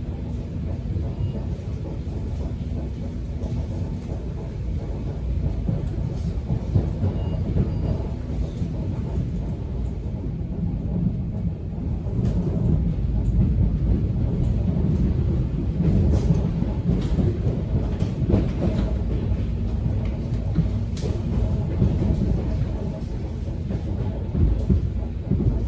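Subway train running, heard from inside the car: a steady low rumble with scattered clicks and knocks from the wheels and carriage, growing louder about halfway through.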